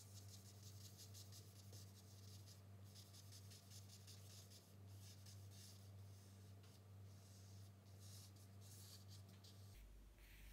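Willow drawing charcoal scratching and rubbing on drawing paper in short repeated strokes, faint, as dark areas are filled in. A low steady hum runs underneath.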